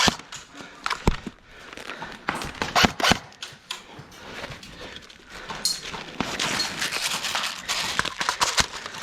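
Airsoft guns firing scattered single shots, sharp snaps spaced irregularly with a quick cluster of three about two and a half to three seconds in. A hissy noise fills the last few seconds.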